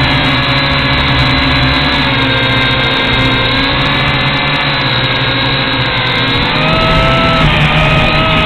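Large FPV quadcopter's electric motors and propellers whining steadily in flight, several tones at once, stepping up in pitch about two-thirds of the way through as the throttle rises.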